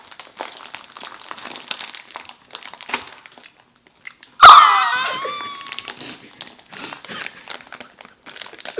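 Snack wrappers crinkling and rustling while snacks are eaten. About halfway through, one sudden loud high-pitched cry drops in pitch and fades away over about a second.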